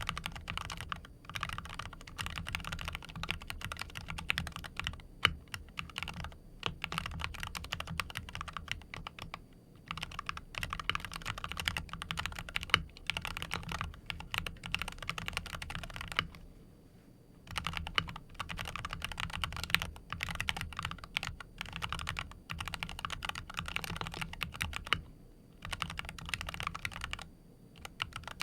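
Typing on a tuned Wooting 60HE keyboard in a full-aluminium Tofu60 Redux case: a steady run of keystrokes with a few short pauses.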